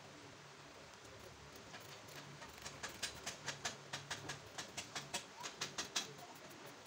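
A rapid run of short, sharp clicks or taps, about three to four a second, starting about two seconds in and stopping about six seconds in.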